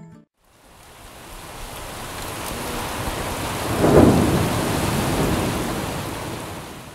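Thunderstorm: a steady hiss of heavy rain, with a clap of thunder rumbling low about four seconds in, the loudest moment. The sound fades in at the start and fades out at the end.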